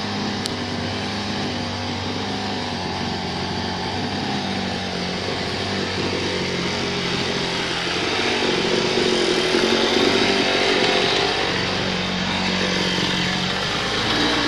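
Small petrol engine of a lawn-care machine running steadily under load, swelling slightly about two-thirds of the way through.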